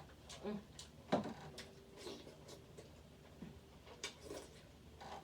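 Crab leg shells being cracked open by hand and eaten: a scatter of short sharp cracks, clicks and mouth sounds, the loudest crack about a second in.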